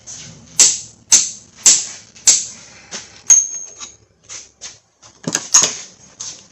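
Hand tools knocking and clinking on metal: a run of four sharp strikes about half a second apart, another that rings briefly, then two more close together.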